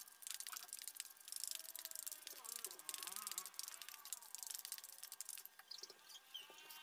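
Metal fork stirring and scraping a wet egg-and-banana mash in a plastic bowl: faint quick clicks and scrapes that thin out about five and a half seconds in. A faint wavering call sounds in the background about three seconds in.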